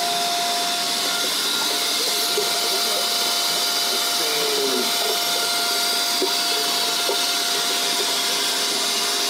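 Steady, even rushing of backwash water flowing upward through a sand and anthracite filter column and its piping, with the filter bed fluidized.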